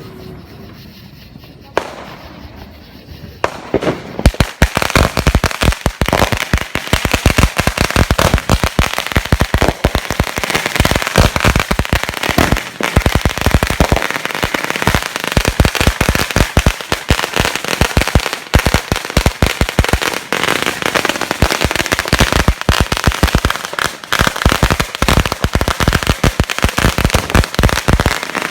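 Firecrackers going off: a single pop about two seconds in, then from about four seconds a dense, rapid string of sharp cracks with no letup.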